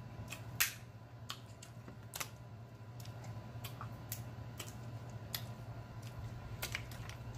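Eating seafood from the shell: scattered sharp clicks and cracks of shell being broken and picked apart by hand and mouth, about seven in all, the loudest about half a second in, over a steady low hum.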